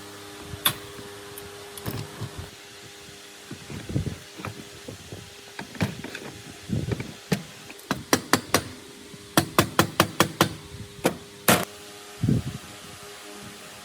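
Hammer taps and knocks on machine parts: scattered single strikes, then quick runs of about four and then six strikes around eight and ten seconds in, over a steady hum.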